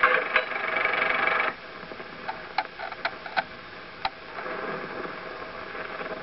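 Steady mechanical running of a film projector, which cuts off about a second and a half in. After that comes a low hiss with a handful of sharp clicks and pops from the film's optical soundtrack as blank leader runs through.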